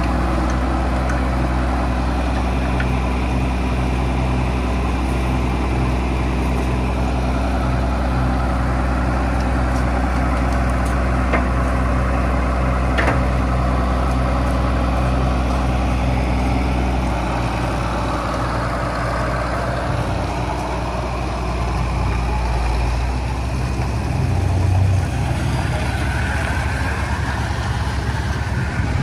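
Diesel engine of a converted log skidder used as a boat-launch tractor, idling steadily. The low hum shifts slightly a little over halfway through.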